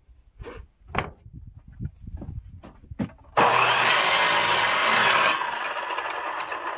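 A few light knocks as the wood is handled, then about three and a half seconds in an electric miter saw starts up and cuts through wood. The sound is loudest for about two seconds and then carries on a little lower as the blade is lifted.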